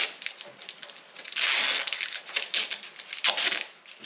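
Masking tape and paper crinkling and crackling as they are handled, in irregular bursts with a couple of longer rustling stretches.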